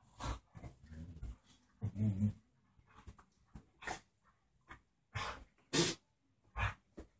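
Two Bearded Collies play-fighting: short low growls early on, then a run of short, sharp noises from the tussle.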